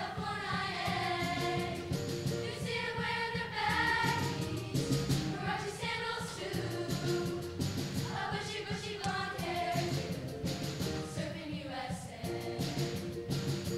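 Middle school show choir singing together over a musical accompaniment with a steady beat.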